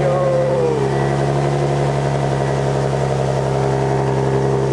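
Nissan 350Z's 3.5-litre V6 idling through a new Tomei dual exhaust, just after a cold start. The revs drop during the first second, then it settles into a steady idle.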